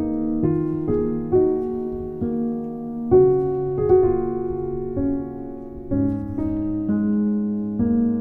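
Background music: a slow piano piece, its notes and chords changing about every half second to second.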